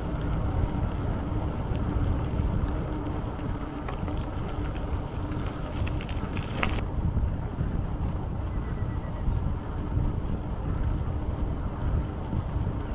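Wind buffeting the camera's microphone while riding a mountain bike, over a steady low rumble from the tyres on the road and a faint steady hum. A brief sharp click about six and a half seconds in.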